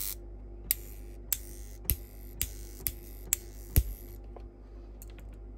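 Peco PL-10 twin-coil solenoid point motor snapping over as it is switched one way and then the other: seven sharp clicks about every half second, the last the loudest, over a faint steady hum.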